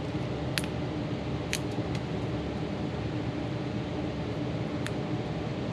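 Steady mechanical hum of a fan or ventilation in the room, with a few faint clicks of small plastic connector parts being handled.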